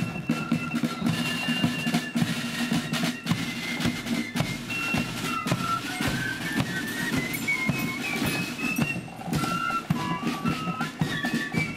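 Marching flute band playing a tune: flutes carry the melody over snare drums and a bass drum.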